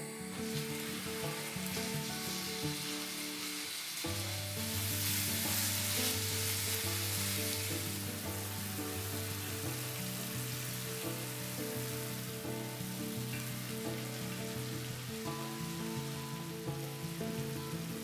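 Minced meat sizzling in oil in a hot nonstick frying pan, loudest a few seconds in, over soft background music.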